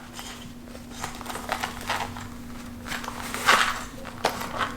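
Gift-bag paper rustling and crinkling in irregular bursts as a present is unpacked by hand, loudest about three and a half seconds in, over a faint steady hum.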